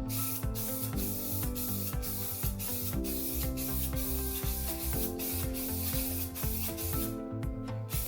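White spray paint hissing out in one long steady pass, breaking off briefly about seven seconds in, as a stripped engine cover is painted. Background music plays underneath.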